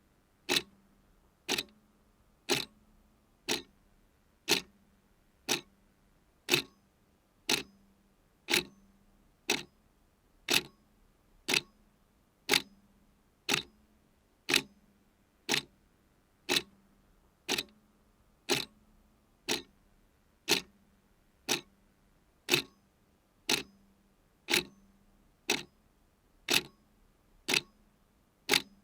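Clock ticking steadily, one sharp tick about every second, with a faint low hum underneath.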